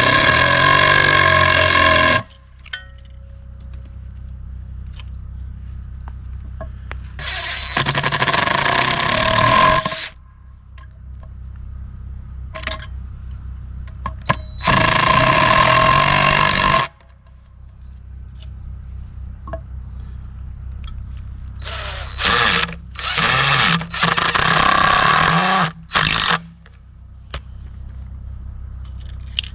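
A power tool run in bursts: three of about two seconds each, then several short bursts in quick succession near the end, with a steady low hum underneath.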